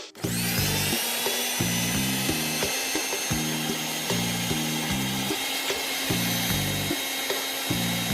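Mixer grinder's universal motor switched on, spinning up within a fraction of a second to full speed and running with a high whine and a hissing rush, then cut off abruptly. Background music plays underneath.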